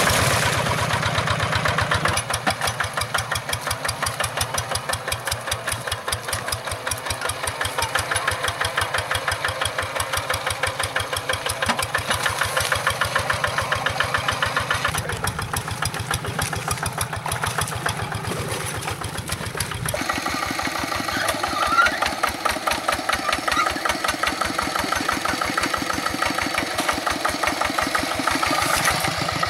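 Single-cylinder diesel engine of a two-wheel walking hand tractor running with an even, rapid beat of firing strokes. The engine note changes abruptly twice.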